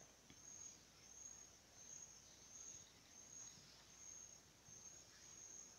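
Near silence: faint room tone with a high-pitched trill that pulses a little faster than once a second.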